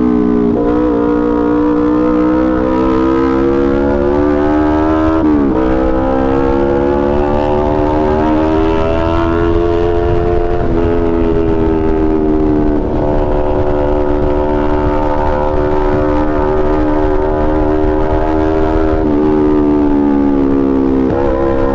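Motorcycle engine pulling under acceleration, its note rising slowly in pitch and dropping sharply about five seconds in, again near ten seconds and once more near the end, with wind rumble on the microphone.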